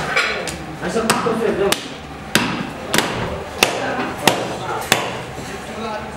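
Cleaver chopping through a lamb rib rack on a wooden chopping block: about seven sharp, evenly spaced strokes, roughly one every two-thirds of a second, starting about a second in.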